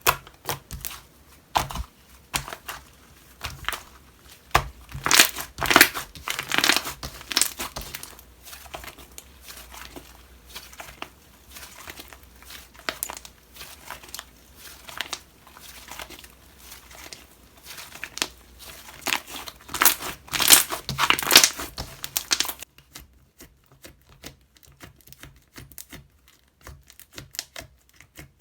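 Slime being squeezed, stretched and pressed by hand, giving a dense crackling and popping, with two louder stretches of crackling and only sparse soft clicks near the end.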